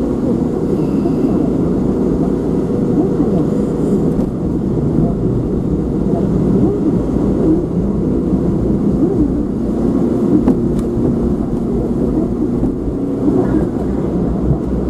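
Steady engine and road noise inside a moving car, with a muffled voice talking underneath.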